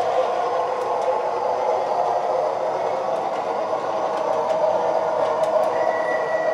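MTH O-gauge PCC streetcar model running along three-rail track with a steady whirring hum. A thin, high, steady tone joins near the end.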